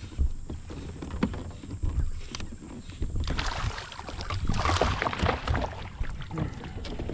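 Hooked bass thrashing and splashing at the surface beside a kayak, loudest for a couple of seconds in the middle. Low knocks are heard throughout.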